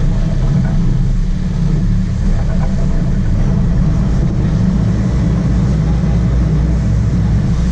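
Fishing boat's engine running steadily, a constant low rumble.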